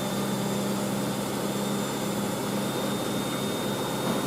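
Hoover SIX AAA160 washing machine draining after the woollens wash, its drain pump giving a steady hum with no spin, and a second washing machine running in the background.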